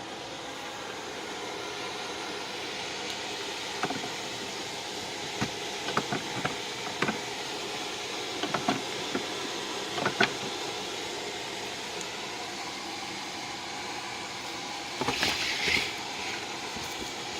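Small motor of a homemade drill press running steadily, with scattered sharp clicks and knocks and a short burst of rattling about fifteen seconds in.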